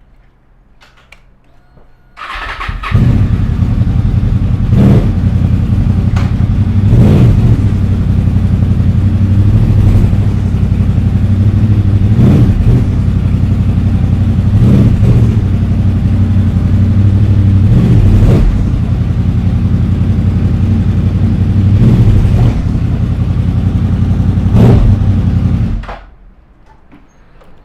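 Honda VFR's V4 motorcycle engine starting about two seconds in and running steadily and loudly, with a short sharp accent every two to three seconds, then shut off suddenly near the end.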